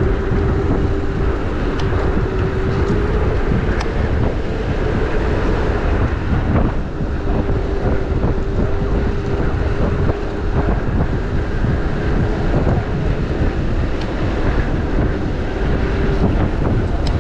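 Wind rushing over a body-worn camera's microphone while riding at speed, with an electric motor's steady whine underneath.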